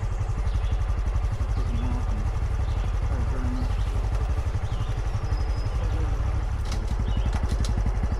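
A Honda CT125 Trail's 125cc air-cooled single-cylinder engine running steadily while the motorcycle is ridden, its quick firing pulses strong in the low end. A few sharp clicks come near the end.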